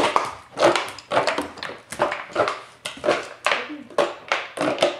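A border collie panting quickly, about two or three breaths a second, with plastic clattering as she works at a plastic crate during a recycling trick.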